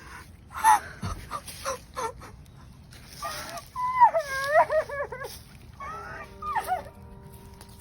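A woman sobbing and wailing in grief: broken cries and gasps, rising to high, wavering wails in the middle. Steady held music tones come in under it near the end.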